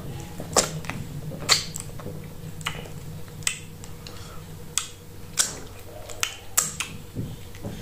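Wet mouth sounds of a person eating plantain fufu with slimy okra soup by hand: about nine sharp lip smacks and clicks, spread irregularly, as the food is swallowed and the fingers are sucked clean.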